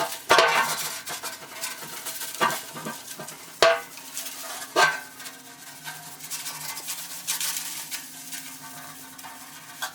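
A metal motorcycle fuel tank being scrubbed by hand in hot soapy water, giving wet scrubbing and sloshing with about four sharp knocks and clatters in the first five seconds.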